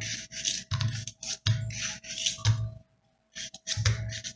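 A kitchen knife slicing chunks of melon, a quick series of short cutting scrapes, with the pieces dropping into a glass blender jar.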